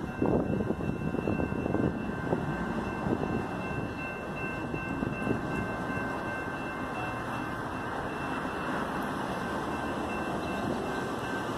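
SMART commuter train, a Nippon Sharyo diesel multiple unit, approaching the station: a steady rumble of engine and wheels on the rails, uneven for the first couple of seconds, with two thin steady high tones running under it.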